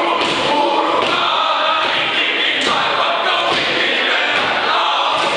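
A group of men chanting and shouting in unison in a haka-style war dance, with a few sharp thuds from stamping bare feet on a wooden gym floor.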